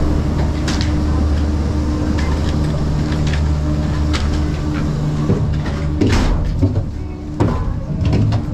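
Steady low mechanical hum with scattered clicks. About six seconds in it gives way to clattering and knocks.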